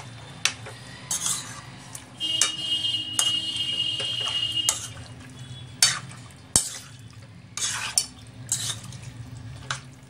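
Chicken pieces in a wet marinade being mixed by hand in a steel wok, with scattered knocks of the pieces against the metal pan. From about two seconds in, a steady high-pitched whine sounds for about two and a half seconds.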